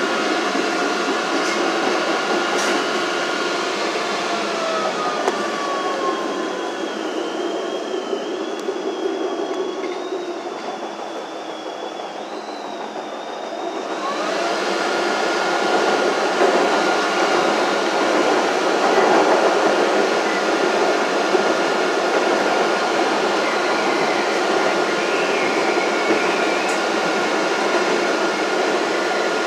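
CTA 3200-series rapid transit car running, heard from inside the car: a steady rumble of wheels and motors on the track. A high wavering squeal comes in for several seconds near the middle. About halfway through the sound suddenly gets louder and a steady whine holds to the end.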